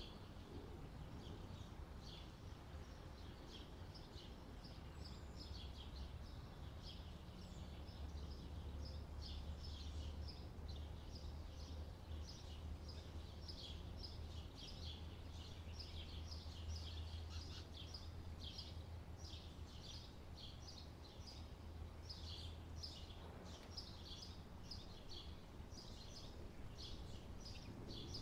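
Faint chorus of small birds chirping, many short calls in quick succession, over a low steady rumble.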